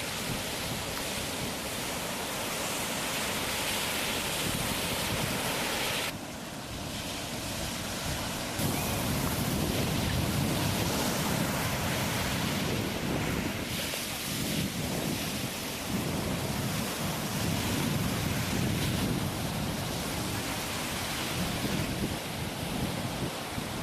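Continuous rushing noise like ocean surf, swelling and easing in slow surges, with a short dip about six seconds in and louder from about nine seconds on.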